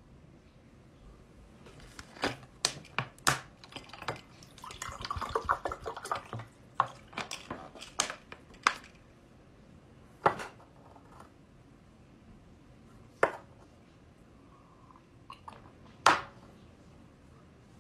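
A plastic water bottle crinkling and clicking as it is handled, with water poured into a drinking glass. Sharp knocks of the glass and bottle on the table come in a quick run through the first half, then a few seconds apart.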